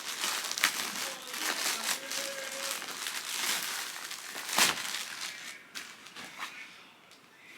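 Plastic packaging crinkling and rustling as clothing is handled and unwrapped, with a sharper crackle about four and a half seconds in. It dies down near the end.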